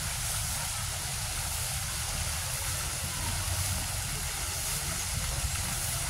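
Steady outdoor background noise: a low rumble with a faint hiss above it, with no distinct events.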